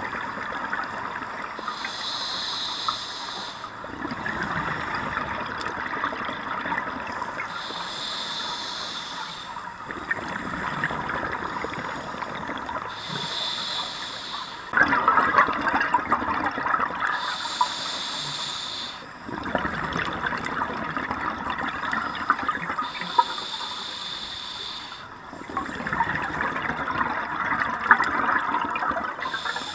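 Scuba diver breathing through a regulator: a short hissing inhale, then a long bubbling exhale, repeating about every five seconds.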